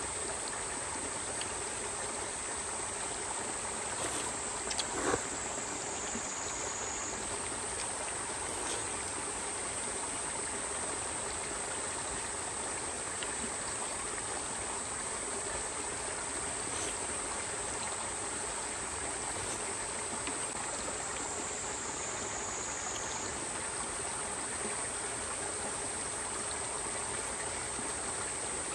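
Steady rush of a flowing stream, with a continuous high-pitched insect buzz over it. A couple of brief knocks come about four to five seconds in.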